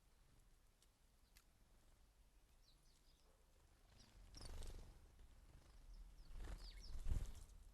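Small garden birds at a feeder giving sparse, short high chirps. Low thumping rumbles come about four and a half seconds in and again a couple of seconds later, the loudest just after seven seconds.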